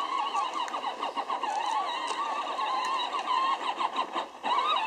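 Peg Perego John Deere Ground Force ride-on toy tractor's 12-volt electric drive motors and gearbox whining as it drives over rough ground, the pitch wavering unevenly, with some clicking and rattling. The whine drops out briefly about four seconds in, then resumes.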